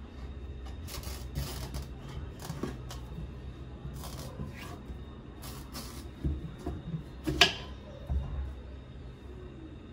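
A kitchen knife cutting lengthwise through a whole pumpkin's hard rind on a wooden cutting board, in several short scraping strokes, with a sharp knock about seven seconds in as the pumpkin splits in two.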